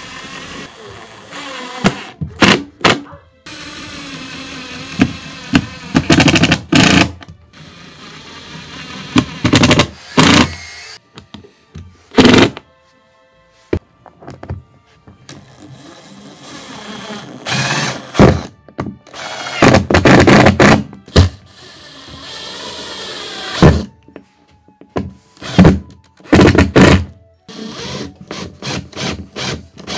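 Power driver sinking screws into a newly fitted window frame, in a series of short loud bursts of a second or less.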